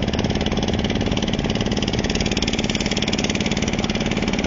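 Boat engine running steadily with a rapid, even chugging beat.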